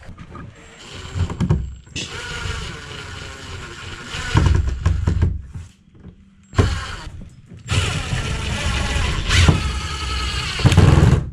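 Ryobi 18 V cordless drill driving a screw into a caravan window frame, run in two long bursts of several seconds each, the second starting abruptly.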